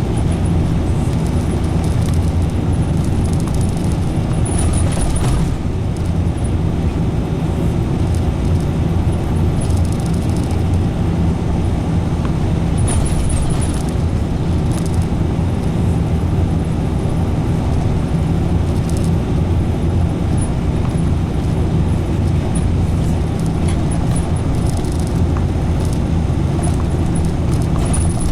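Steady low drone of a route bus's engine and tyres heard from inside the cabin while it drives along the road between stops.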